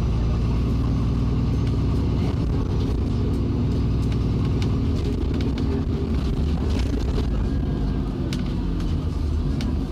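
Alexander Dennis Enviro400 double-deck bus heard from on board: its diesel engine running steadily under way, with scattered light clicks and rattles.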